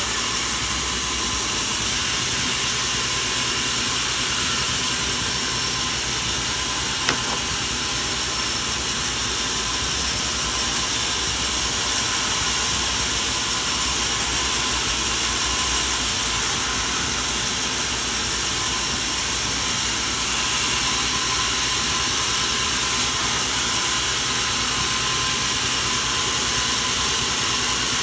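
Machinery running with a steady, even, hissing noise that does not change in pitch or level. A single sharp click sounds about seven seconds in.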